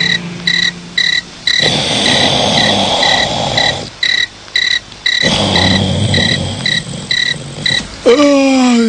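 Crickets chirping steadily, about three chirps a second, a night-time ambience effect. Two swells of rushing noise pass behind them, and near the end a loud falling, wavering pitched glide.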